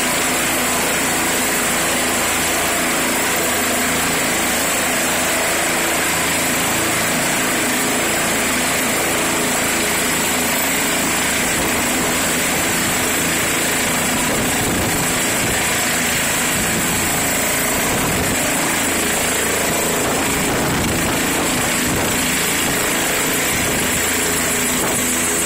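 Bell 206 helicopter's turboshaft engine and main rotor running steadily as it hovers low and settles onto a wheeled landing dolly, with a steady high-pitched turbine whine.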